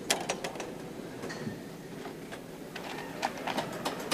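Assembly-line clatter of tools and metal parts: a string of light clicks and taps, bunched near the start and again near the end, over a steady low background noise.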